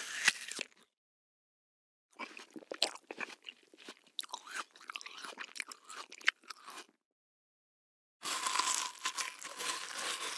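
A person biting into crunchy food, a short crackly crunch, then several seconds of crunchy chewing with irregular crackles. About eight seconds in, a denser, more continuous crunching noise begins.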